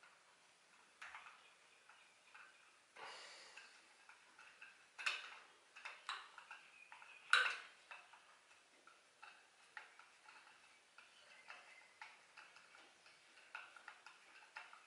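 Faint, scattered small metal clicks and ticks of a hand driver turning screws into a Prodigy longarm quilter's head box, with two louder clinks about five and seven seconds in.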